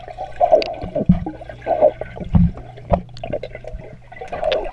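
Water swirling and bubbling heard underwater through a GoPro's waterproof housing as a swimmer moves past it, with a steady low hum underneath and several louder sloshes.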